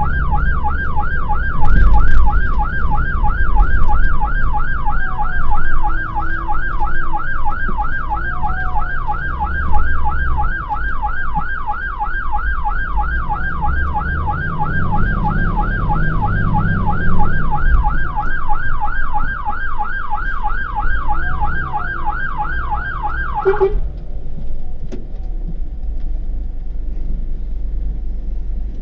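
Fire engine's siren on an emergency run, heard from inside the cab: a fast rising-and-falling yelp, about three sweeps a second, over the low rumble of the engine. The siren cuts off suddenly near the end, leaving the engine rumble.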